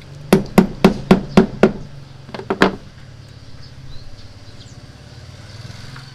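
A quick, even run of six sharp taps, then two more close together about a second later, over a steady low hum.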